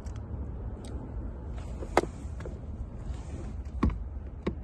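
Scattered clicks and knocks of a hand tool working on the blower motor's mounting screws under the dashboard, the loudest about two seconds in and another near four seconds, with faint rustling between.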